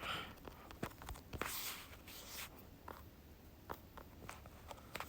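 Faint handling sounds: soft rustles and a scattering of light clicks, from someone searching for a passage.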